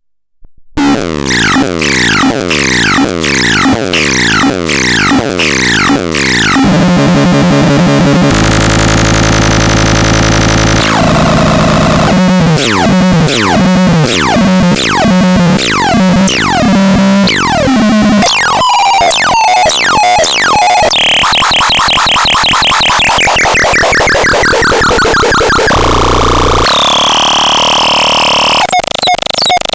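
Electronic synthesized tones cycling through a series of different patterns every few seconds: repeated falling sweeps about twice a second, then a steady buzzing tone, then fast chirping sweeps, then more sweeps and held tones. It starts after a brief silence.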